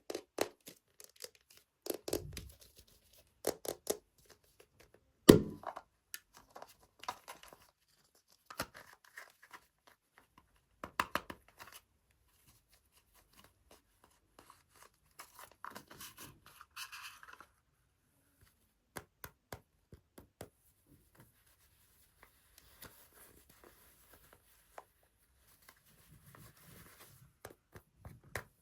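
Hands unboxing blind-bag surprise toys: packaging is torn and crinkled, and plastic is tapped and clicked. A sharp knock about five seconds in is the loudest sound, and stretches of soft rustling follow later.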